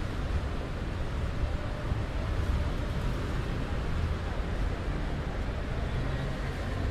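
Steady outdoor city street noise, mostly a low traffic rumble, with no distinct events standing out.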